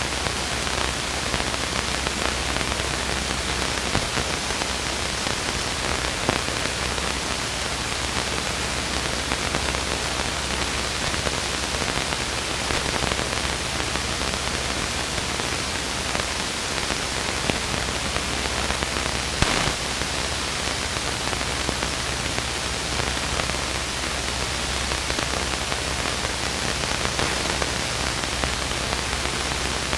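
Steady hiss of a Luscombe light aircraft's cockpit audio feed in cruise, with the engine's low drone underneath. A single short click comes about two-thirds of the way through.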